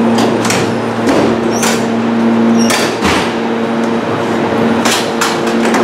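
Semi-automatic gangway bellows on a Meitetsu 2000-series μSKY train extending between two coupled cars: a run of knocks and clacks with a rustling spell about a second in, over a steady low hum.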